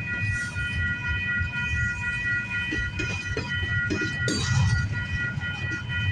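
Freight train cars rolling past: a steady low rumble with repeated wheel clacks over the rail joints. Several steady high ringing tones run through it throughout, typical of a level-crossing warning bell.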